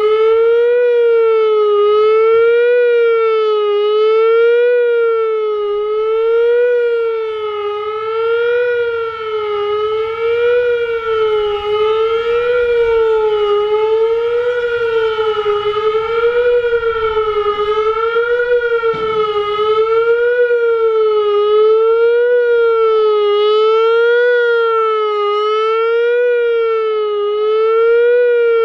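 Whelen WPS-3000 electronic outdoor warning siren sounding its Attack (fast wail) signal: a loud tone swinging up and down in pitch over a narrow range, about once every two seconds.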